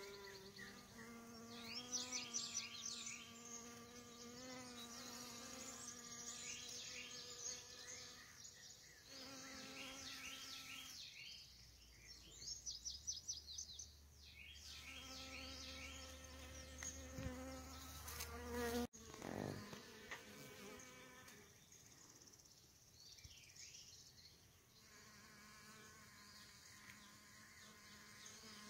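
Honey bees and carpenter bees buzzing in flight at close range: a wing hum that fades out and comes back several times as the bees come and go. Bursts of high, rapid chirping sound in the background, and there is one sharp click about two-thirds of the way through.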